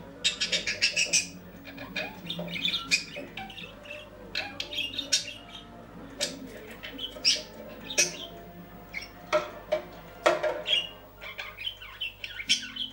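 Budgerigar chirping and chattering in short, rapid calls while it bathes, with quick splashes as it dips into the water of a plastic cage bath.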